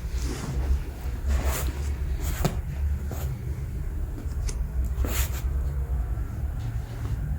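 Handling noise during manual treatment: a few short rustling, rubbing scuffs of hands and clothing against the treatment table over a steady low rumble, with one sharper click about two and a half seconds in.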